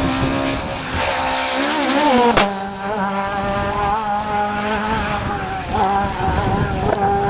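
Rally car engine running hard, its revs rising and falling for the first two seconds, then a single sharp crack, then held fairly steady.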